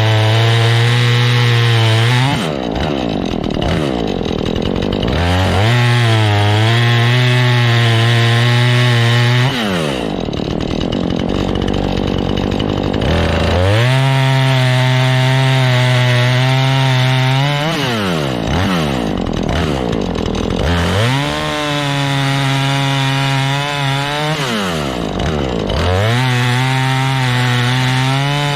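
Husqvarna 440e two-stroke chainsaw cutting wood. It is held at high revs for spells of a few seconds, and about four times the engine drops off and then revs back up between cuts.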